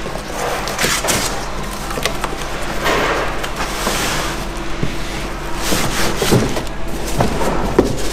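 Cardboard box being unpacked by hand: cardboard flaps and packing scraping, plastic bags around the metal mount brackets rustling, and a few knocks as parts are set on the workbench.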